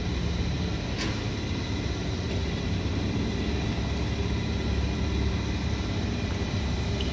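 A steady low mechanical drone with a faint constant hum above it, and a single sharp click about a second in.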